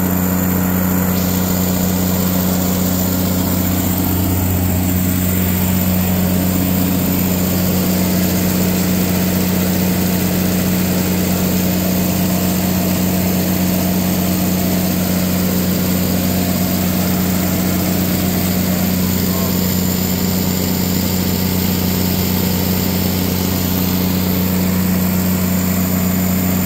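Katolight 110 kVA generator set's engine running at a steady, unchanging speed, a constant low drone with no misses. It runs smoothly now that it has been got going again.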